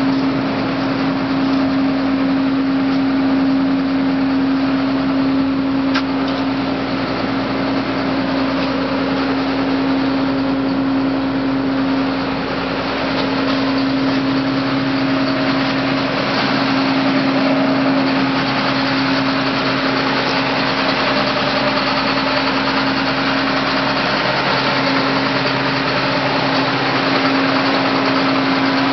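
John Deere 9600 combine's diesel engine running steadily with an even hum.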